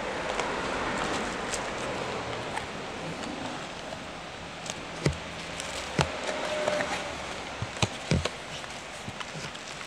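Handling of a white cardboard device box and its paper inserts: a few sharp taps and knocks, around five and six seconds in and twice near eight seconds, over a steady background hiss.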